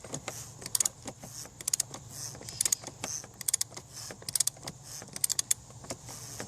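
Ratchet wrench clicking in short runs, about one run a second, as the oil filter housing cap on a BMW M54 six-cylinder is wound down toward its snug 25 Nm.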